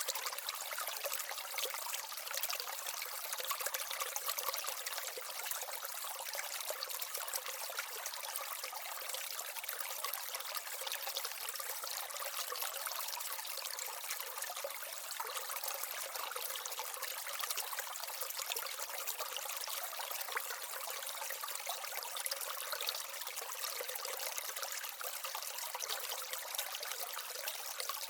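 Water trickling steadily down a miniature waterfall and stream in an aquaterrarium.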